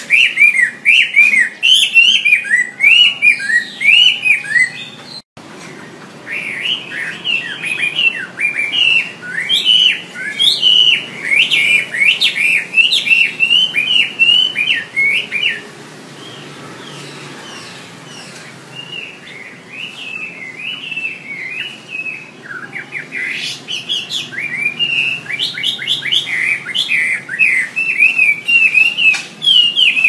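Chinese hwamei singing: a fast, continuous run of loud, varied whistled phrases sliding up and down. The song cuts out abruptly for an instant about five seconds in, softens for a few seconds around the middle, then builds again.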